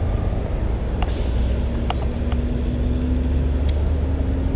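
Steady low rumble of road traffic, with a short hiss about a second in and a few faint clicks.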